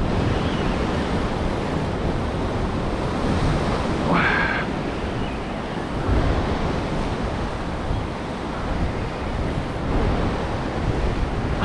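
Ocean surf washing and breaking over a rocky shore ledge, a steady rush with small swells in level, with wind buffeting the microphone.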